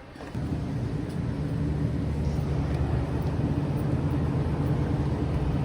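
Steady low mechanical drone with a constant pitch, like a motor or engine running, starting just after the beginning.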